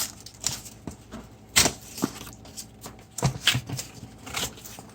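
Cardboard headphone packaging being handled and opened: irregular sharp taps, clicks and rustles, the loudest about a second and a half in and a quick cluster a little past the middle.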